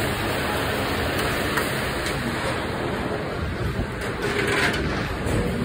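Steady rushing noise at a commercial kitchen grill station, with a brief brighter hiss about four and a half seconds in.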